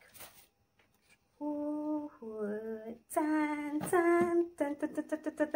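A woman sings a short wordless tune: a few held notes, the second one lower, then a quick run of short notes near the end.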